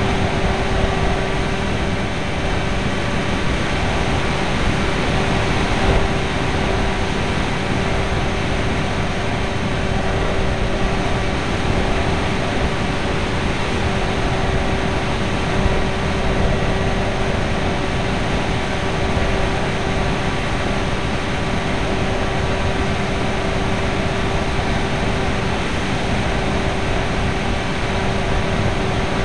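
Wing Dragon RC FPV plane in flight, heard through its onboard camera mic: a loud, steady rush of wind and propeller noise with a constant hum from the electric motor running at cruise.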